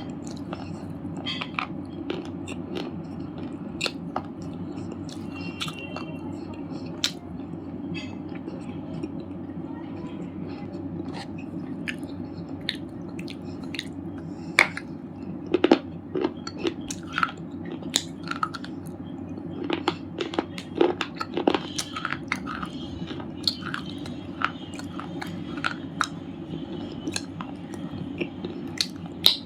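Red slate chips being bitten and chewed: irregular sharp crunches and cracks, sparse at first and coming thicker in the second half, over a steady low background noise.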